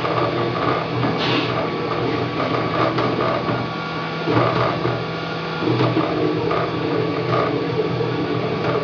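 Wanhao Duplicator 3 desktop 3D printer printing: its stepper motors whir in tones that change every second or so as the print head moves, over a steady whine.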